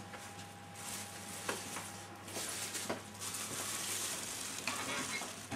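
Faint room hiss and low hum, with a few light knocks and rustles of a cardboard box or tray being handled.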